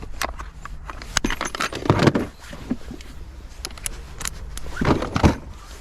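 Small metal parts, Torx bits and bolts, clinking and rattling as they are handled and sorted, with louder clatters about two seconds and five seconds in.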